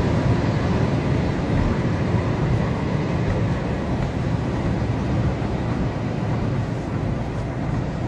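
Steady drone of engine, tyre and road noise inside a moving car's cabin.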